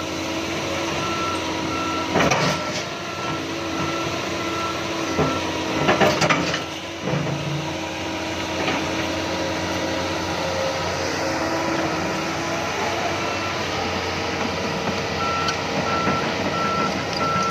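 Heavy diesel machinery running steadily while a backup alarm beeps in two spells, near the start and again near the end. There are a couple of loud clanks, about two and six seconds in.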